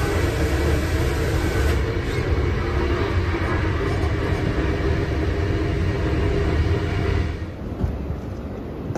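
Swiss intercity train running at speed, heard inside its toilet cubicle: a steady low rumble with wheel and running noise. About seven seconds in it gives way to quieter, even station-platform ambience.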